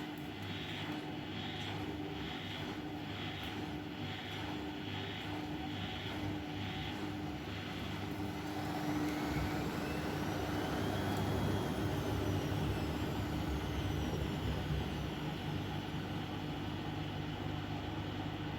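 Bosch Maxx washing machine running through a 60°C wash. For the first several seconds there is a pulsing sound at a little over one beat a second. Then the drum motor's whine rises in pitch to a peak and falls away again over about six seconds, getting louder at the peak.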